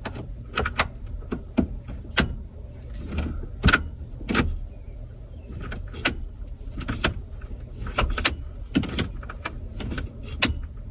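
Small hand tools working on a tight screw: a T25 Torx bit and pliers clicking and knocking against metal and plastic in irregular sharp taps, over a low steady hum.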